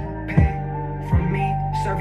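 Hip hop beat playing loud through speakers: a steady deep bass and a held melody line, with a couple of sharp drum hits, during a moment without rapping.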